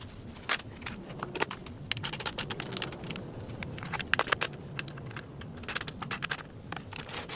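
Irregular clicks and taps of hand-handled acrylic stop blocks and their bolt-and-knob hardware being set against a wooden crosscut sled fence, busiest and loudest around the middle.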